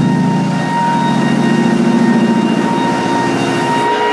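Walk-behind floor sander running as it sands a maple hardwood floor: a steady, loud motor hum with a high whine over it, dipping briefly near the end.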